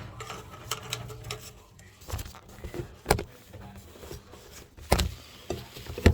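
Scattered knocks and clanks, a few sharp hits spread out over several seconds, as a plumber's drain cable is handled.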